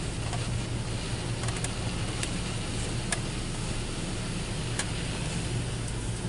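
Belanger Kondor KL2 automatic car wash spraying water and soap over the car, heard from inside the cabin as a steady hiss over a low hum, with a few sharp ticks.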